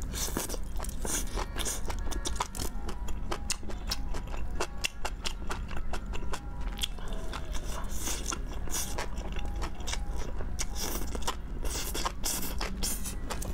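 Close-miked eating: biting and chewing spicy sauced enoki mushroom skewers, a dense run of sharp, crunchy, crackling mouth clicks.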